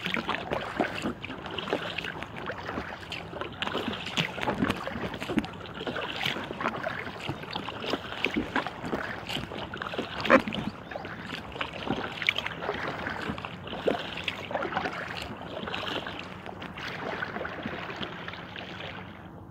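Water splashing and lapping around an inflatable kayak as it is paddled, an uneven wash of small splashes, with one louder hit about ten seconds in.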